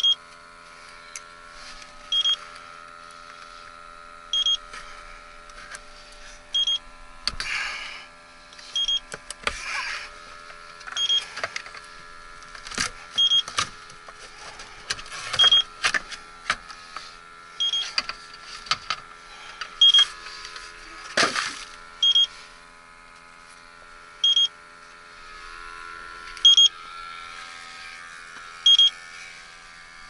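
TIF electronic refrigerant leak detector beeping at an even slow rate, about once every two seconds, as its probe is worked around an R-410A heat pump air handler; the rate never speeds up, so no refrigerant is being picked up. Knocks and rustles from handling the probe and cabinet come between the beeps.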